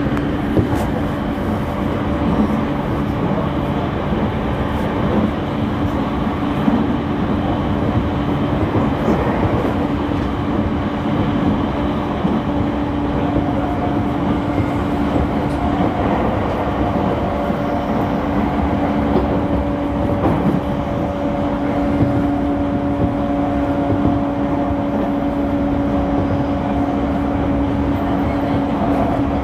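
Onboard running sound of a refurbished JR E231-series electric commuter train at a steady speed, heard inside a passenger car: continuous rumble and rail noise with a steady low hum. A fainter, higher pair of level tones joins about halfway through.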